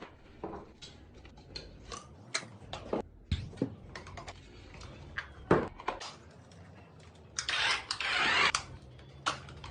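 Scattered sharp clicks and knocks, like plastic parts being handled, with a hiss lasting about a second near the end.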